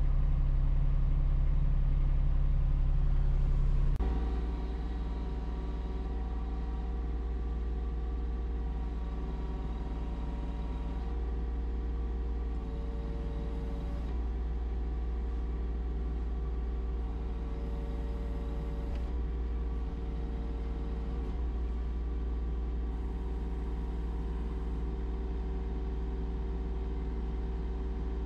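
Kubota U27-4 mini excavator's diesel engine running steadily, heard from inside the cab. About four seconds in it drops to a quieter, lower running note, with brief faint whines now and then as the hydraulics work the tiltrotator bucket.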